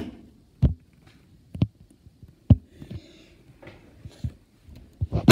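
About half a dozen separate thumps and knocks, spaced unevenly a second or so apart.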